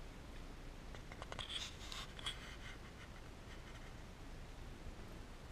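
Scratchy rustling and clicking, mostly about a second in and lasting around a second and a half: tiny kittens being handled and scrabbling about on a tiled floor. Two very short high squeaks sit in the middle of it.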